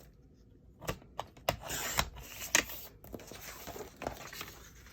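Paper trimmer cutting cardstock: a few clicks as the paper is set against the trimmer, then a rasping swish of about a second as the blade slides through the sheet, with light knocks of handling.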